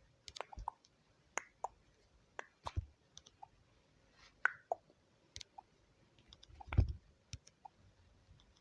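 Irregular, faint clicks and small taps, with one slightly heavier knock about seven seconds in.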